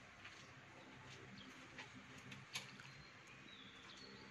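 Near silence: faint room tone with a few soft, sparse clicks.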